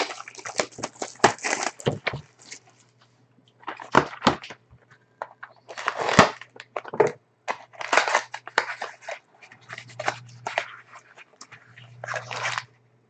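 Plastic shrink wrap and card-pack wrappers crinkling and tearing in irregular bursts as a sealed box of trading cards is opened, over a faint low electrical hum.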